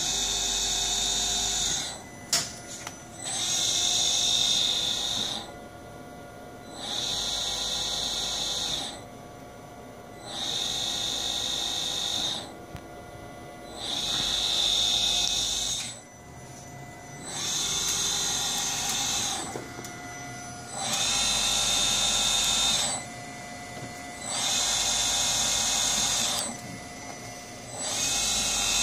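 Fanuc AC servo motor driven by an A06B-6090-H006 alpha servo amplifier on a test bench, running in repeated cycles up to about 2,500 rpm. A high whine lasts about two seconds, then drops away for a second or so, again and again about every three and a half seconds. There is one sharp click about two seconds in.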